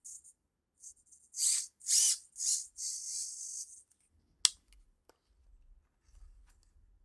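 Small 270° digital servo motor (LewanSoul LD-3015MG) whirring in a run of short bursts as it turns the lens focus ring through plastic gears. About halfway through comes a single sharp click, followed by a few light ticks and low handling bumps.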